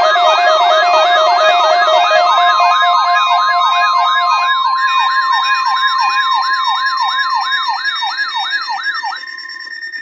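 Electronic siren yelping: a fast falling sweep repeated about four times a second, over steady held tones. It fades near the end and cuts off.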